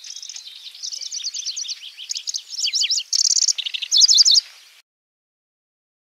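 Pallas's grasshopper warbler (kecici belalang) singing: a fast chattering run of high notes that grows louder and ends in loud, quick trilled phrases, stopping suddenly about five seconds in.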